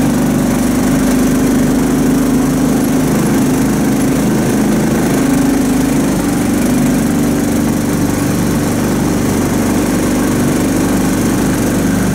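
Homemade karakat all-terrain vehicle's small engine running steadily and loudly at an even pitch.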